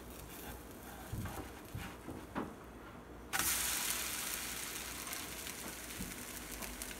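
Swedish pancake frying in butter in a non-stick pan, sizzling. The sizzle is faint at first with a few soft knocks, then jumps louder and brighter about three seconds in and slowly fades.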